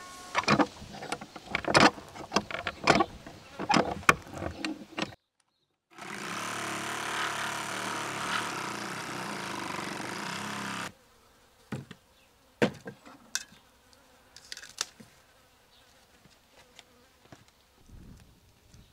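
Sharp knocks and clatter of beef bones being handled on a steel tray, then, after a short break, a steady buzzing hum for about five seconds that stops abruptly, followed by a quieter stretch with a few light clicks and footsteps.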